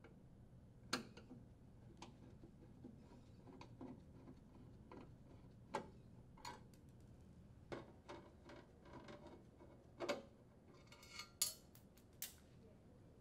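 Faint, scattered clicks and light metallic ticks of a Phillips screwdriver working screws out of a sheet-metal junction box, with the tool and metal parts tapping against each other.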